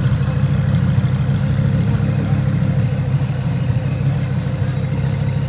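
A car engine idling steadily: a loud, even, low-pitched tone with a fast regular pulse and no revving.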